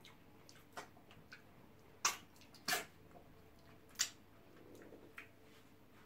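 Wet mouth sounds of eating by hand: about five sharp smacks and slurps as pounded yam dipped in slimy okra and ogbono soup is taken into the mouth and chewed, the loudest about two seconds in, just before three seconds and at four seconds.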